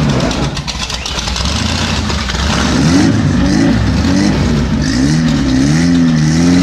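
An off-road rig's engine revving up and down in quick, repeated waves over a low rumble. The revs drop away about half a second in and pick up again about three seconds in.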